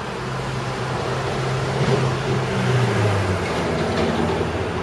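Steady low hum of a running motor, dropping in pitch about three seconds in, with a few faint clicks as a plastic alarm connector cover is pushed into place.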